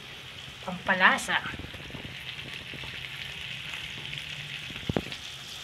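Pork belly, onions and tomatoes sizzling steadily in a frying pan, with one sharp tap near the end.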